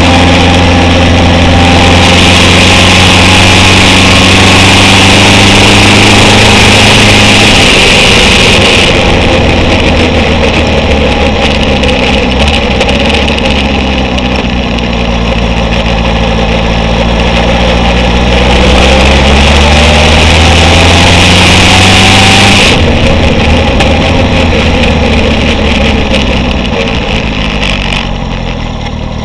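Honda CB750 chopper's inline-four engine running under way, with heavy wind rush on the bike-mounted microphone. The engine note drops about eight seconds in, climbs steadily as the bike accelerates, and falls away sharply about three-quarters through as the throttle is closed.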